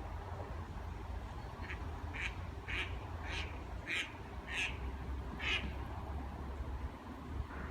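A bird giving a series of about seven short, harsh calls, a little under two a second, over a steady low rumble.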